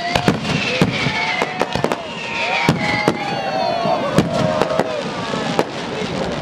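Aerial firework shells bursting in quick, irregular bangs, many in a few seconds.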